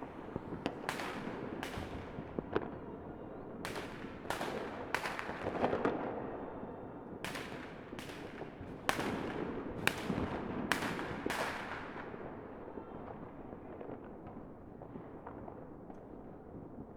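Fireworks going off: a continuous bed of distant bangs and crackle, with about a dozen sharp, louder reports in the first twelve seconds, thinning out after that.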